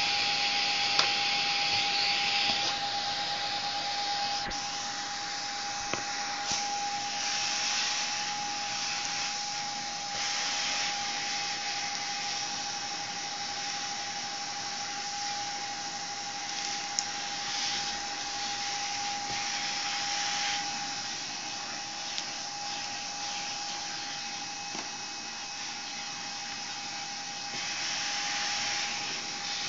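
Zelmer type 338.0 canister vacuum cleaner running steadily, its motor brushes freshly bedded in: a constant high motor whine over the rush of air. The airflow noise swells and eases a few times.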